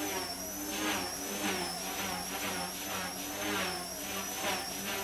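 Micro collective-pitch RC helicopter with brushless main and tail motors in flight: a high, continuous motor whine over the rotor's buzzing hum, both wavering slightly up and down in pitch.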